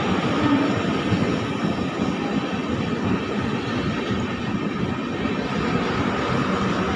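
Express train's passenger coaches rolling past close by at speed: a steady, loud noise of wheels running on the rails.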